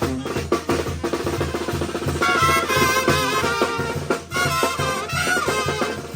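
A banda brass band playing: drums and a low bass part keep a steady beat, and the brass, trumpets among them, come in about two seconds in.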